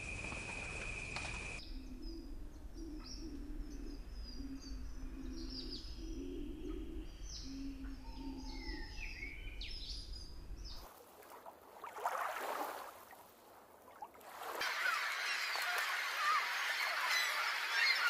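Wild birds calling: short high chirps and whistled notes over a low, repeated hooting. In the last few seconds this gives way to a dense chorus of many birds calling at once.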